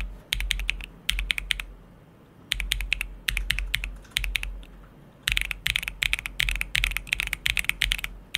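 Typing on a MonsGeek M1W mechanical keyboard with a keycap set under test: quick runs of keystrokes in bursts, broken by two brief pauses, with a low thud under each run.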